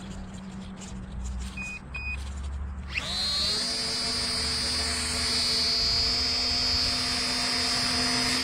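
Two short electronic beeps, then the small electric motor and propeller of a LEAMBE P-51 Mustang RC plane spin up about three seconds in, with a quick rising whine that settles into a steady high whine at constant throttle.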